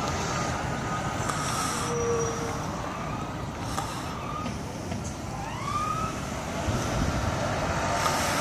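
Emergency vehicle siren, a faint wail that glides up in pitch about five and a half seconds in, over steady engine and road noise.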